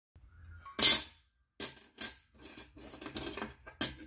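Thin steel slotted angle plates clinking and clattering against each other and the tabletop as they are handled, with a few sharp metallic clanks, the loudest about a second in.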